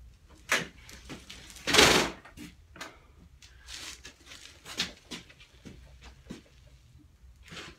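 Motorcycle front forks being pumped, the front brake held while the bike is pushed forward: irregular knocks and creaks as the suspension compresses and rebounds, with one louder, longer burst about two seconds in. This is done to force oil and dirt out past freshly cleaned fork seals.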